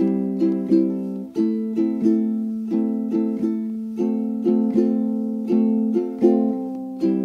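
Background music played on a plucked string instrument, chords picked in a steady, even rhythm, each note struck and fading.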